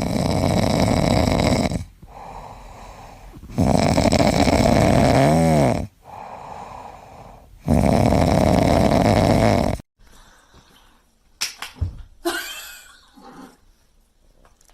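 A pet snoring loudly: three long snores of about two seconds each, with quieter breaths between them. The snoring cuts off about ten seconds in, and faint scattered sounds follow.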